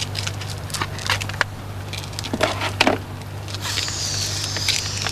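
A man blowing hard into a breath-alcohol test tube, a steady hiss of air starting about three and a half seconds in, with scattered clicks and crackles before it over a steady low hum.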